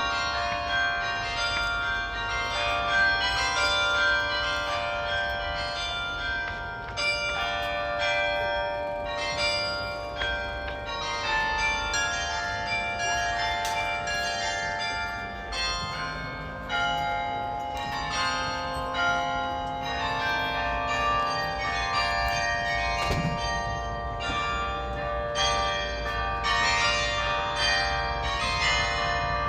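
Carillon bells in a church tower playing a melody, many struck notes following one another and ringing on over each other.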